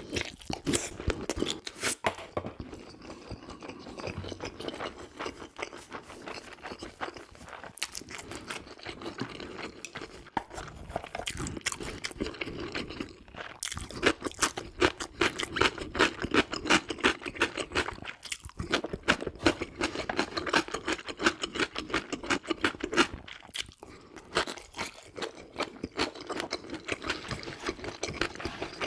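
Close-miked eating: chewing and wet mouth sounds in spells of quick repeated smacks and clicks.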